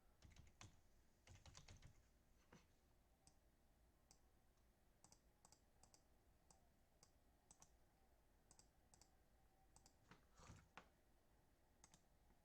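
Near silence with faint clicking at a computer: a few louder clicks in the first two seconds and again around ten seconds in, with small light ticks in between.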